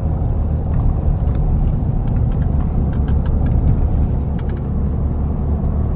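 Steady low rumble of a car being driven, with road and engine noise heard from inside the cabin.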